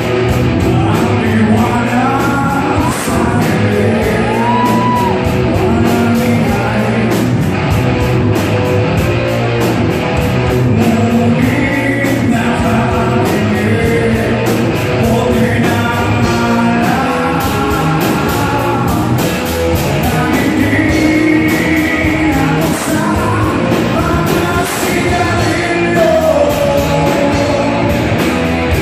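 Rock band playing loudly: a male lead singer over electric guitars, bass guitar and drums, with steady drum hits throughout.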